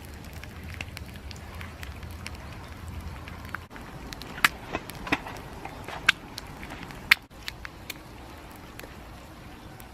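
Wood campfire crackling, with a handful of sharp, louder pops about halfway through.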